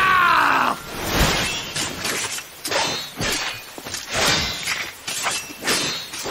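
A man's scream that falls in pitch, then a run of sharp katana clashes, metal on metal, several of them ringing briefly after the strike.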